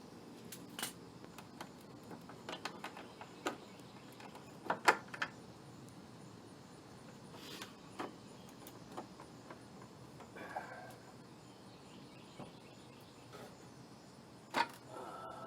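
Hands working at a pickup's headlight assembly: scattered sharp clicks and light knocks of plastic and metal parts being handled, the loudest a quick pair about five seconds in and another near the end.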